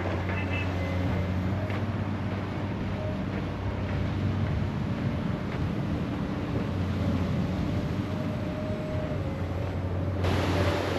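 Steady low drone of a diesel engine on heavy machinery, with wind noise on the microphone; the sound changes abruptly about ten seconds in and gets more hiss.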